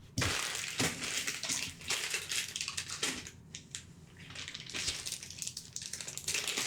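Packaging rustling and crinkling in irregular bursts, with light clicks and taps, as plastic bags and cardboard game components are handled and unpacked.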